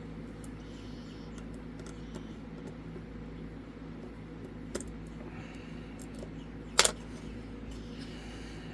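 Faint metallic clicks of a lockpick and tension wrench working the pins of a Zeiss Ikon SK6 pin-tumbler lock, with one sharper, louder click near seven seconds in, over a steady low hum.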